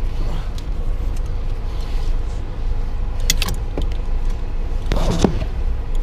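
Low, steady rumble of a car idling, heard inside the cabin, with a few sharp clicks about halfway through and a short metallic clatter near the end from the wheelchair restraint fittings being handled.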